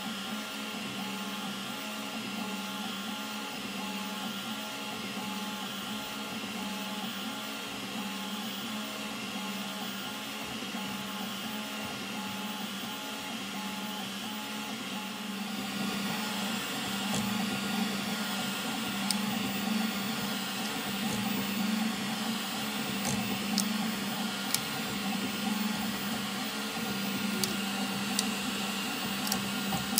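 BCN3D xBot FDM 3D printer running a print: a steady hum of its stepper motors and fans, with a repeating pattern of short tones as the print head moves back and forth. About halfway through it gets louder, with scattered sharp ticks.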